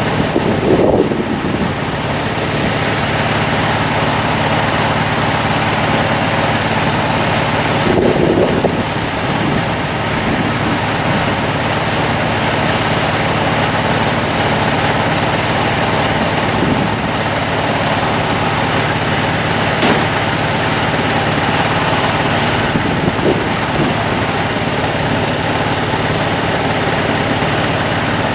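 An engine idling steadily, with a few brief louder noises over it, one a sharp click about twenty seconds in.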